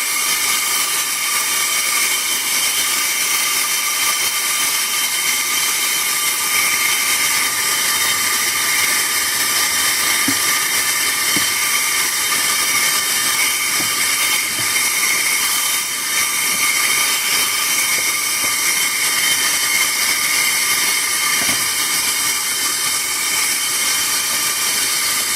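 Harbor Freight air-operated venturi vacuum pump hissing steadily as compressed air rushes through it, drawing the air out of a kart tire through its valve stem to collapse the tire.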